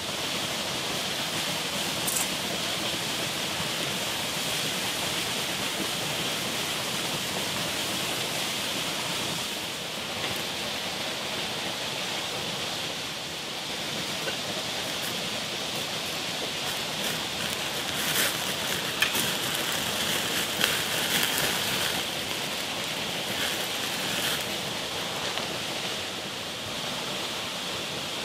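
Wood fire burning under a grill grate: a steady hiss with scattered sharp crackles and pops, which come thickest about two-thirds of the way through.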